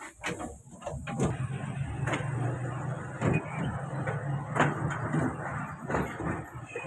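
Passenger train carriage rolling slowly out of a station, heard from inside: a steady low rumble sets in about a second in, with several separate knocks, likely from the wheels and couplings.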